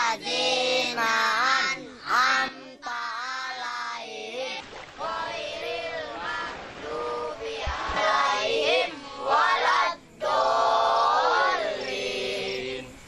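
Children singing together in unison, a melodic chant with long held notes and short breaks between phrases.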